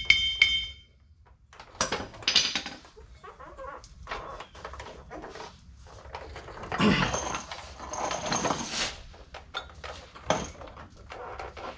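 Steel clanks, knocks and scraping from a tandem dump truck's driveshaft being worked by hand into line with the differential yoke. A sharp ringing metal clink comes at the start, and a longer stretch of scraping and rattling comes about seven to nine seconds in.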